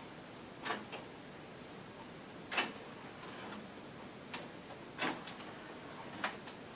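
Pioneer CT-M6R six-cassette changer mechanism clicking as it sequences through its tapes during an all-rewind cycle: about nine sharp, irregularly spaced mechanical clicks over a faint hiss, the loudest about two and a half seconds in.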